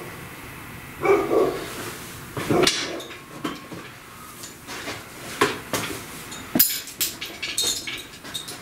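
A dog barks once about a second in, then a string of sharp metallic clinks and knocks as the engine hoist's chain and hooks are handled.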